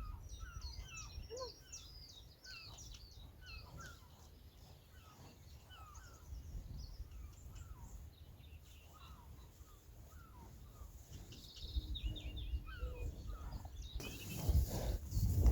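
Small wild birds singing, with many short chirps and trills over a low outdoor rumble. Near the end a louder rushing noise takes over.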